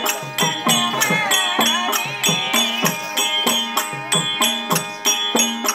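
Therukoothu folk-theatre music: percussion strokes in a steady rhythm of about three a second, with a melody line that holds and slides in pitch above it.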